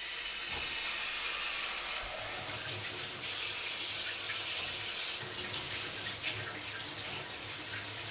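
Kitchen tap running into a sink as potatoes are washed under the stream. The steady hiss of the water grows and weakens a few times as the flow is broken.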